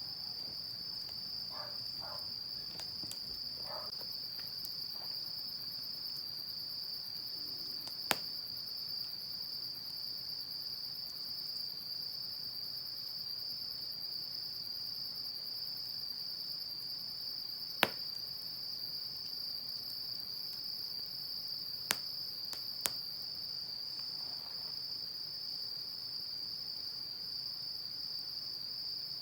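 Crickets trilling in one steady high note, with four sharp pops from the burning firewood of a yard fire, one about eight seconds in, one near the middle and two close together later on.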